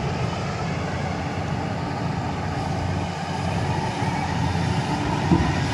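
Excavator's diesel engine running steadily, with a small knock about five seconds in.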